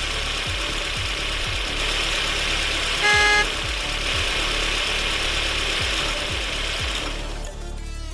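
A tractor-like engine running steadily at a low idle, with a short loud beep about three seconds in. Near the end the engine hiss fades.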